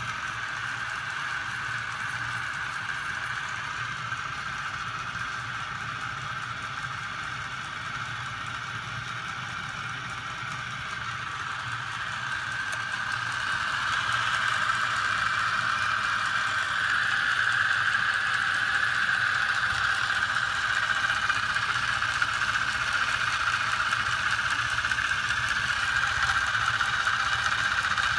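Small 12-volt electric motor driving a homemade magnet-and-crankshaft machine, running with a steady high whine over a low hum. It grows louder about halfway through.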